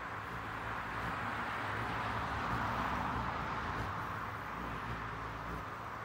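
A vehicle passing on a road: a rush of tyre and engine noise that swells to a peak about halfway through and then fades away.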